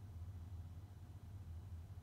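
Quiet room tone with a steady low hum and no distinct events.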